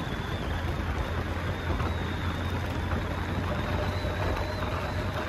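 Motorcycle ridden at a steady pace: a low, even engine drone under steady wind and road noise.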